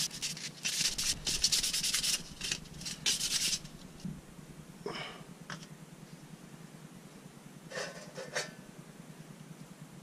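Quick repeated hand-sanding strokes, rough and scratchy, for about three and a half seconds, then a few short single scrapes around five seconds and eight seconds in.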